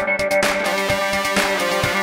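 Electronic background music with a steady beat and held synth tones.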